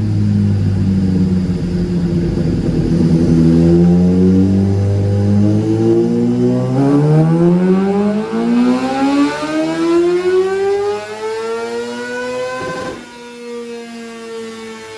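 Kawasaki ZX-6R inline-four engine making a dyno pull: it holds steady at lower revs, then climbs smoothly up through the rev range for about seven seconds, and about thirteen seconds in the throttle is chopped with a short crack and the revs drop away.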